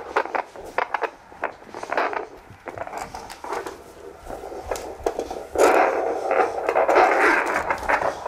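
Handheld fetal Doppler's speaker giving scratchy static and scraping from the probe on a pregnant Great Dane's belly, with a louder whooshing rush from about five and a half seconds in.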